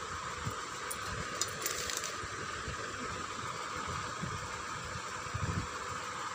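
A knife slicing through a block of paneer, with a few soft knocks against the board, over a steady background hiss and hum.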